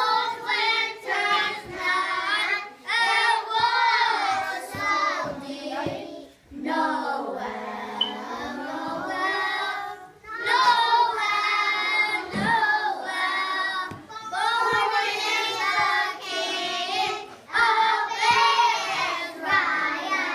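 A group of young children singing a song together in unison, phrase after phrase with short pauses for breath.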